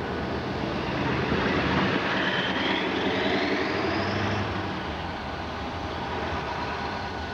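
Diesel locomotives idling in a shop yard: a steady engine rumble. Between about two and four seconds in, a whine rises in pitch over it as the sound swells, then eases off.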